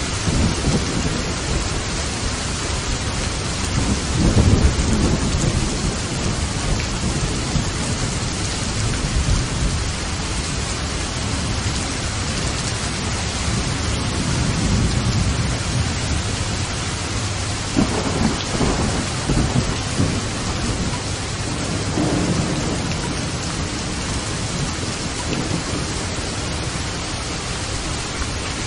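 Steady heavy rain with thunder rumbling several times, loudest about four seconds in and again in lower rolls later on.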